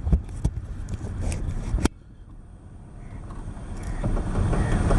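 Car travel noise: low rumble and wind, broken by sharp clicks where clips are cut together. After a click about two seconds in the noise drops low, then gradually swells back up.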